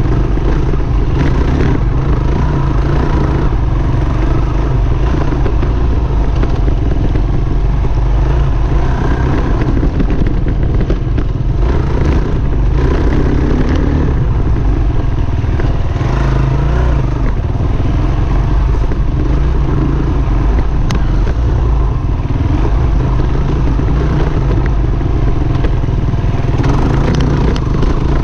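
KTM 350 XC-W F dirt bike's single-cylinder four-stroke engine running steadily under throttle while riding singletrack, with an occasional knock from the bike over rough ground.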